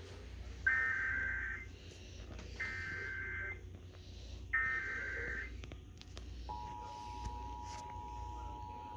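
Emergency Alert System SAME header: three one-second bursts of rapid warbling digital data tones, about a second apart. About six and a half seconds in, the steady two-tone EAS attention signal starts and holds, heard from a television.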